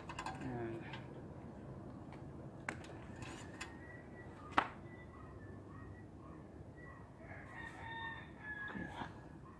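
A rooster crowing in the background, with a pitched call near the start and a longer crow near the end. Two sharp clicks come in between, the louder one about four and a half seconds in.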